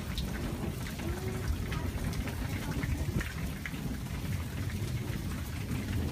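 Steady rain falling, with scattered drops ticking close by over a continuous low rumble of thunder.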